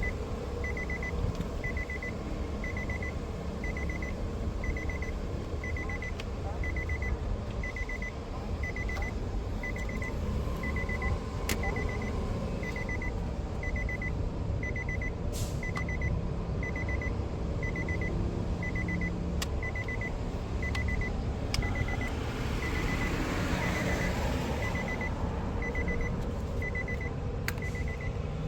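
A car's dashboard warning chime beeping steadily, about one and a half beeps a second, over a steady low rumble, with a few sharp clicks.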